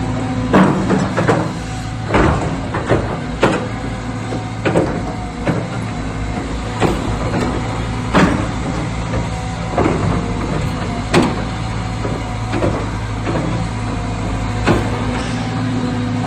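Cat 320GX excavator's diesel engine running steadily, with irregular sharp clanks or knocks about once a second.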